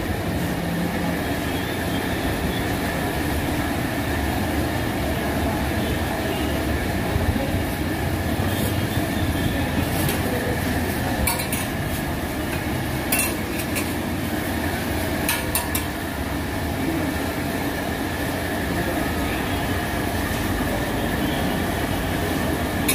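Steady rumbling background noise, with a handful of brief metal clinks in the middle as a steel ladle knocks against a steel stew pot and serving plate.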